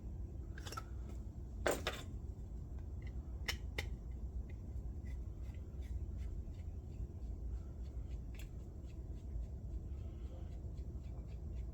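Scattered light clicks and taps of Milwaukee screwdrivers being handled and set down, a few sharper knocks in the first four seconds, over a low steady hum.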